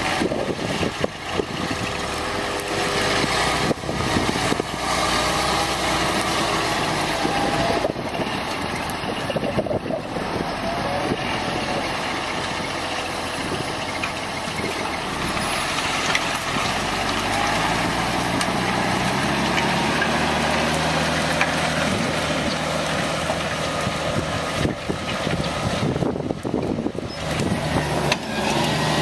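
Valtra 191 tractor's diesel engine running under load while pulling a mounted reversible plough, with a rough steady noise throughout; in the second half the engine note comes through more clearly and climbs slowly in pitch.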